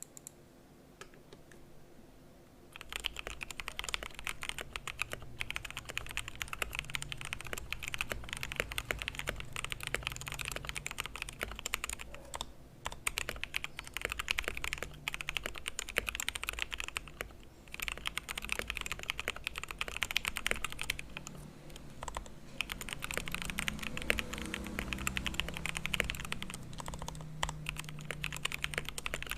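Typing on a Royal Kludge RK61 mechanical keyboard with stock RK Red linear switches, its case foamed with PE foam between PCB and plate, set on a book: fast, continuous keystrokes starting about three seconds in, with brief pauses now and then.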